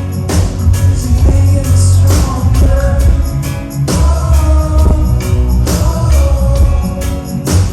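Reggae band playing live: a heavy, pulsing bass line and drums with a sung vocal over them.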